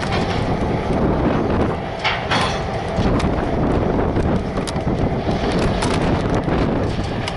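Low rumble of a freight train and its locomotives, with wind buffeting the microphone and a few sharp clicks scattered through.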